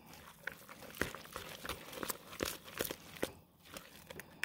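A fork stirring ground chicken, raw egg and chopped onion in a plastic bowl, giving a run of irregular light clicks and wet mixing sounds.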